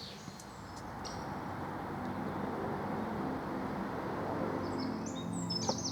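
Outdoor ambience: a low, steady hum that swells slightly, with a small bird singing in quick chirps near the end.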